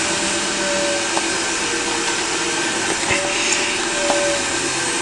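Steady whirring of a running machine, like a fan or motor, with a faint tone that wavers slowly up and down, and a couple of faint clicks.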